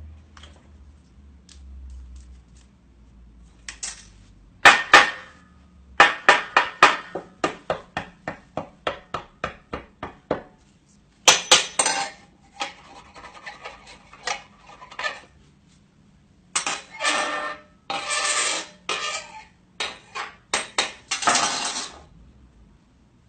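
Clinking and clattering of hard objects: two loud knocks about five seconds in, then a run of sharp clicks, two to three a second, and later several bursts of rattling.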